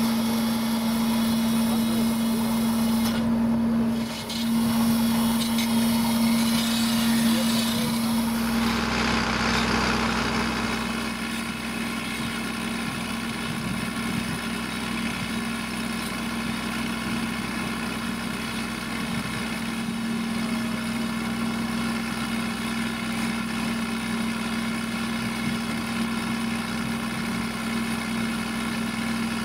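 Farm tractor engine and machinery running steadily, with a constant hum. About nine seconds in the sound changes and settles to a quieter, even engine drone.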